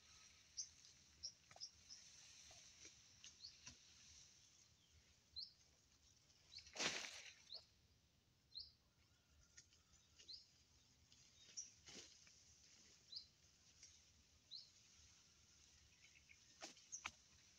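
Faint small birds chirping, short rising chirps scattered every second or two over a quiet rural background. A brief noisy rustle about seven seconds in is the loudest sound, with a few sharp clicks near twelve and seventeen seconds.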